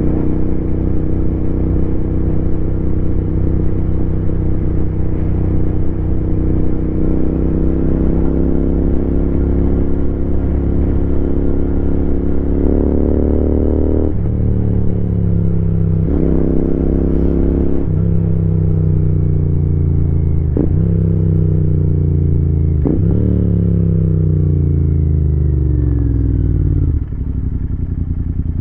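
Royal Enfield Continental GT 650's 648 cc parallel-twin engine running under way, heard from the rider's seat: steady cruising, then several gear changes about two seconds apart, each with a click and a jump in engine note. Engine speed falls off as the bike slows, then drops to idle with the clutch in near the end.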